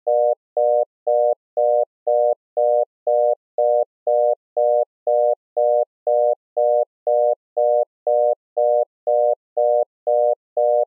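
Philippine telephone number-unobtainable tone: short beeps of a steady tone, about two a second, evenly spaced with equal gaps, telling the caller the dialled number cannot be reached.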